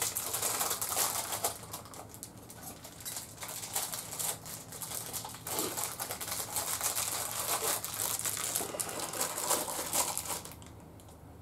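Hands handling small motorcycle fork parts and packaging: a busy run of small clicks, taps and rustling that stops suddenly about ten and a half seconds in.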